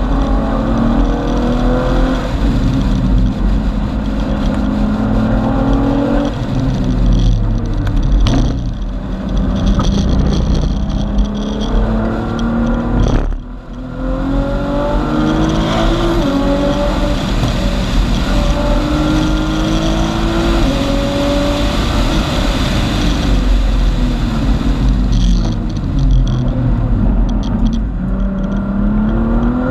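Tuned 2014 Nissan GT-R's twin-turbo V6, with aftermarket exhaust, heard from inside the cabin at track speed. Its pitch climbs through each gear and drops at each shift, with a brief lift about thirteen and a half seconds in. Road and wind rumble sit underneath.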